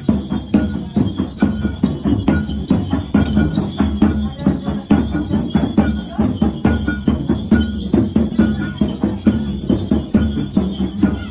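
Kabasaran dance music: percussion with jingling bells, keeping a quick steady beat of sharp strikes over a steady low tone.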